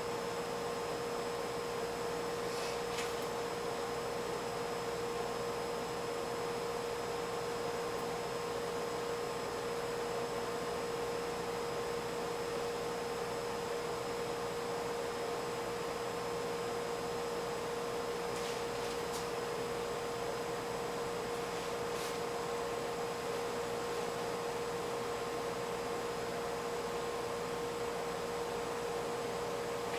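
Steady electrical hum with a constant mid-pitched tone over an even hiss, with a few faint clicks about three seconds in and again around twenty seconds in.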